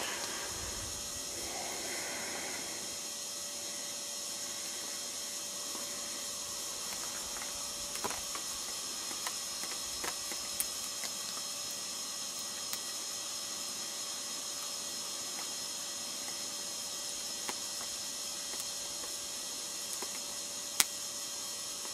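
Wood campfire crackling, with scattered sharp pops and one loud crack near the end, over a steady background hiss.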